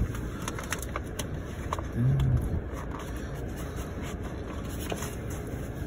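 Steady low rumble of a car, heard from inside the cabin, with a short low hum about two seconds in.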